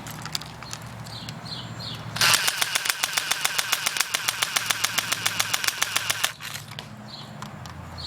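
Airsoft AUG rifle firing one full-auto burst of rapid, evenly spaced shots, about eight a second, starting about two seconds in and lasting about four seconds.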